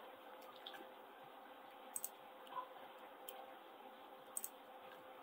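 A few faint clicks of a computer mouse, two of them coming in quick pairs, over a low steady room hum.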